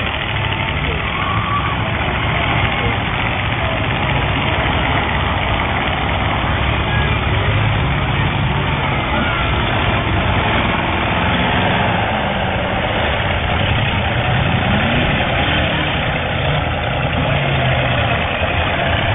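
Demolition derby cars' engines running together, several at once, with a few revving up in pitch partway through.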